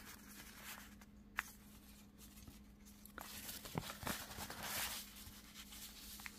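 Faint rustling and a few light taps of a paper piece being handled, laid down and pressed flat onto a journal page.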